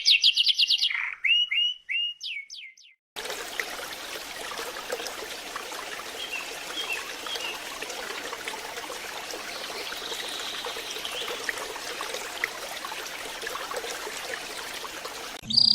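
Domestic canary song: a fast trill of rapidly repeated sweeping notes that breaks into a few slower falling notes and stops at about three seconds. After a short gap comes a steady hiss-like background noise with a few faint chirps, until loud trilling starts again at the very end.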